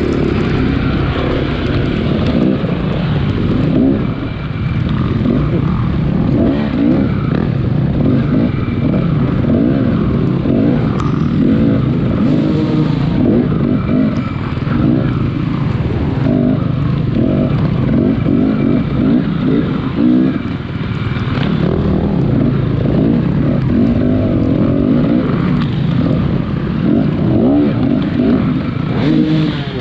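Off-road dirt bike engine being ridden hard, its pitch rising and falling over and over as the throttle is opened and closed.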